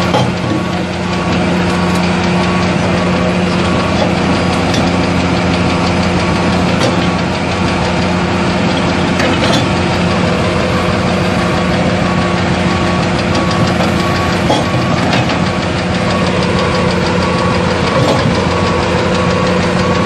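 Excavator's diesel engine running steadily while its hydraulic breaker hammers rapidly against rock.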